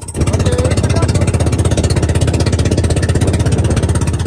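Outrigger fishing boat's engine running hard with a rapid, even beat. It comes up sharply just after the start and eases off at the very end.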